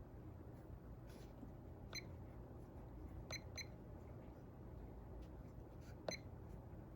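Modern Forms Vox 26-inch DC ceiling fan running quietly as a low steady hum, with four faint short high beeps: about two seconds in, twice close together a little past three seconds, and once about six seconds in.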